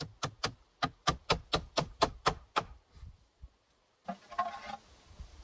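Hammer nailing into a wooden roof pole: about ten quick, sharp blows in under three seconds. A short scraping rustle follows about four seconds in.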